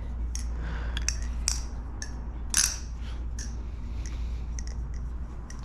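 Thomas Balisong Refault butterfly knife being flipped: irregular metallic clicks and clacks as the handles swing around the blade and knock together, with a louder clack about two and a half seconds in.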